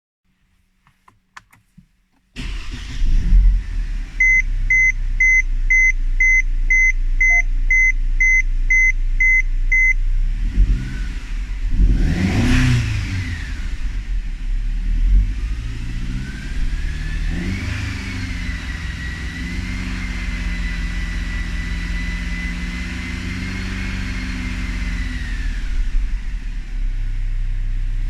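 Mercedes-Benz C250 engine starting with a few faint clicks before it catches, then idling while a warning chime beeps about twice a second for several seconds. After a quick blip of the throttle the revs are held higher for about ten seconds, with a high thin whine over the engine that follows its speed. This is the strange engine noise the owner is recording.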